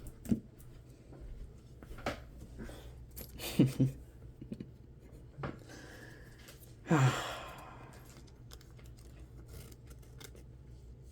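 Trading-card packs and cards being handled: a few short crinkling and tearing noises from a pack wrapper being opened, with a longer rustle about seven seconds in.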